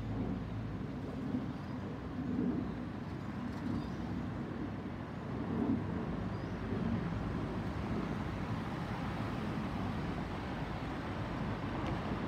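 Boeing 737-800 airliner's CFM56-7B turbofan engines heard from the ground during a flyover as a steady low rumble.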